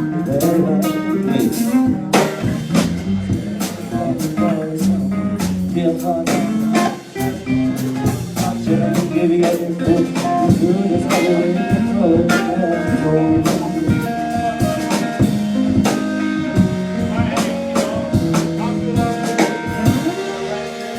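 A live band playing with electric guitar and drum kit, the drums keeping a steady beat, with a brief drop in level about seven seconds in.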